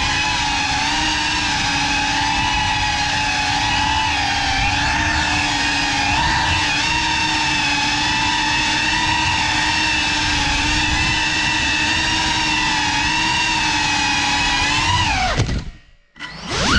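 GEPRC Cinelog 35 cinewhoop's brushless motors and ducted propellers whining at a steady pitch in flight. About fifteen seconds in, the whine drops steeply in pitch and nearly cuts out for about half a second, then spins back up with a wavering pitch.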